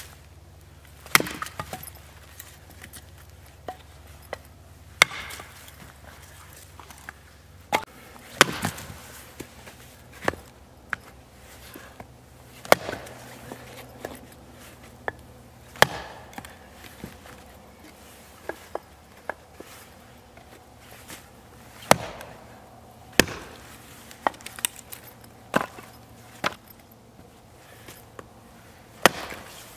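Hatchet splitting firewood into kindling: about a dozen sharp chops at irregular intervals of one to three seconds, with fainter knocks of wood pieces between them.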